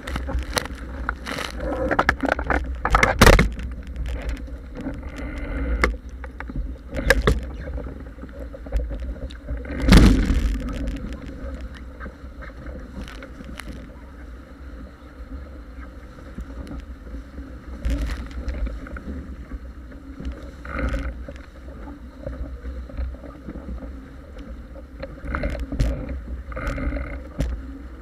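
Paper Tiger catamaran sailing fast through choppy water: a steady rush of water past the hull with wind buffeting the onboard camera's microphone, broken by irregular loud splashes as waves and spray hit the hull, the loudest about ten seconds in.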